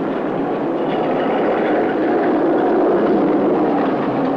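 Road traffic: the steady noise of motor vehicles running past, swelling a little about halfway through and easing off near the end.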